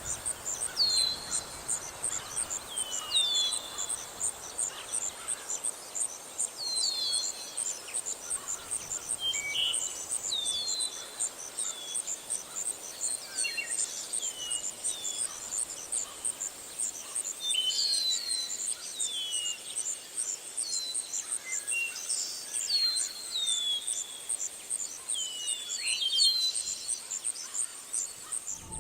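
Insects trilling in a steady high-pitched pulsing chorus, while birds repeatedly call in short down-slurred chirps.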